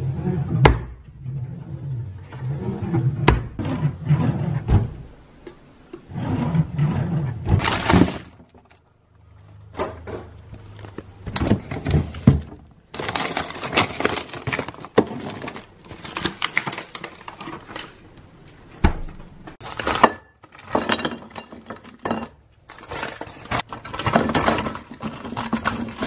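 White kitchen drawers and cabinet doors opening and banging shut in a string of sharp knocks, with plastic packets of frozen dumplings rustling and a few clinks of dishes.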